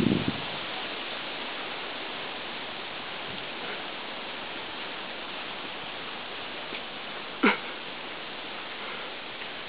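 Steady outdoor hiss, broken once about seven and a half seconds in by a single short, sharp yip from a young collie puppy at play.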